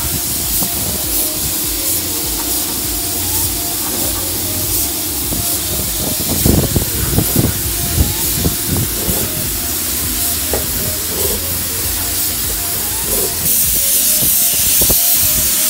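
Compressed-air paint spray gun spraying the car's interior floor pan: a steady, loud hiss of atomising air, louder near the end, with a few light knocks midway.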